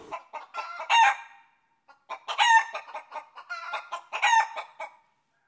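Birds calling: quick runs of short calls, with three louder, drawn-out calls about a second, two and a half seconds, and four seconds in.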